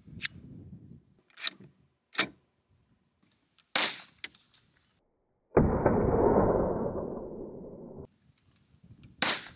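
Colt Vest Pocket .25 ACP pistol test-fired remotely while clamped in a vise. A few sharp metallic clicks as the magazine is seated come first. A sudden loud blast follows a little past halfway and dies away over about two seconds, and a short sharp crack comes near the end.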